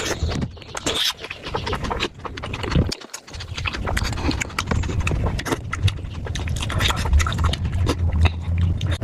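Close-miked mouth sounds of someone eating soupy momos: a dense run of wet chewing, smacking and slurping clicks, over a low hum.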